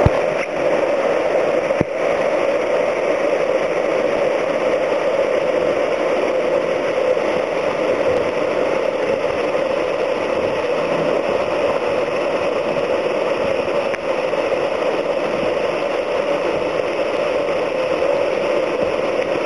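Waterfall pouring down a narrow canyon slot close by: a loud, steady rush of water.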